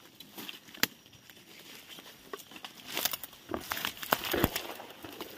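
Dry twigs and leaf litter crackling and rustling as someone pushes through brittle undergrowth on foot. There is a sharp snap about a second in, and the rustling grows denser in the second half.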